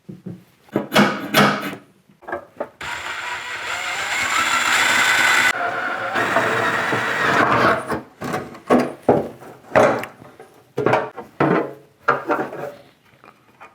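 A power drill running for about five seconds, boring out a rivet that holds a lock on an old sheet-metal tackle box. Sharp clicks and knocks come before and after as the drill and box parts are handled.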